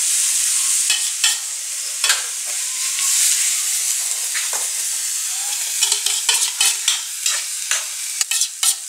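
Beaten eggs sizzling in hot coconut oil in a frying pan of wilted amaranth (caruru) greens. A spoon scrapes and clicks against the pan, quick clicks coming thick over the last few seconds as the egg is spread.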